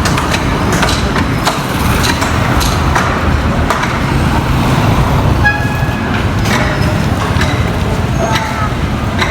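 A heavy vehicle engine running steadily, with repeated knocks and clanks over it, a short horn-like toot about five and a half seconds in, and voices near the end.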